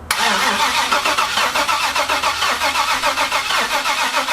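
LS V8 swapped into a Ram 1500 turning over on the starter in its first start attempt after the swap. It kicks in abruptly just after the start, with an even, rapid rhythmic pulsing throughout.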